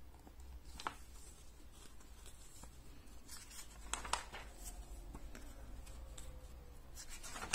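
Pages of a glossy magazine being turned and smoothed by hand: faint paper rustles and light ticks, the loudest about four seconds in, over a low steady hum.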